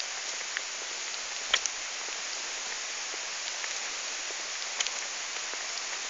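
Steady even hiss with a few sharp ticks, the loudest about a second and a half in.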